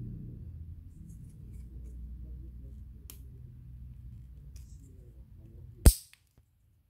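White plastic arms of an air-conditioner deflector handled and pressed together, with faint plastic ticks and one sharp snap near the end as a joint clicks into place. A low steady hum underneath.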